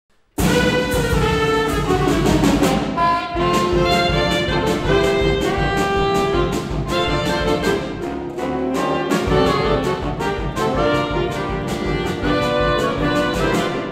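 Saxophone ensemble of soprano, alto, tenor, baritone and bass saxophones with a drum kit, playing a jazz passage. After a moment's silence the whole band comes in together about half a second in, with the drums striking steadily under the held saxophone chords.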